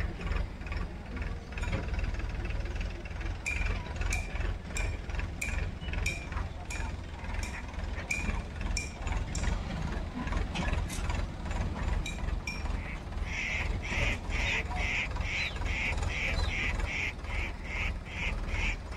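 A bird calling over and over in short, sharp squawks, at first roughly one or two a second, then louder and quicker about two-thirds of the way in, over a steady low rumble.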